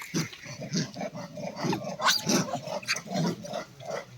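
Monkeys squabbling at close range: a rapid, overlapping run of short growls and grunts, several a second.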